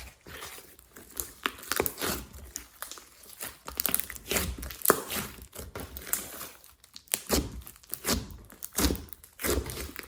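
Hands squeezing, stretching and pressing slime, giving irregular sharp clicks and pops several times a second.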